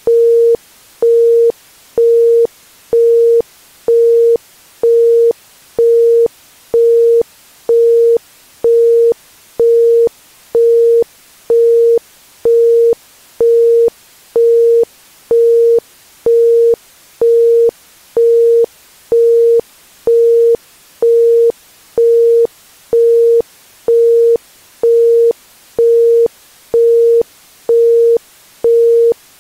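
Isochronic brainwave-entrainment tone: a pure 465 Hz tone pulsing on and off evenly about once a second (1.05 Hz), over a faint steady background hiss.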